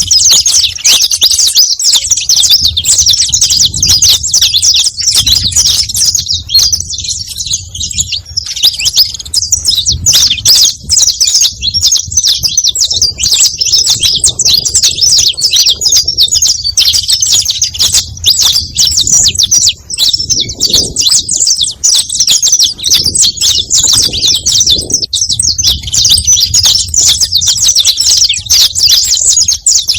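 Saffron finch singing: a nearly unbroken stream of rapid, high chirps and trills.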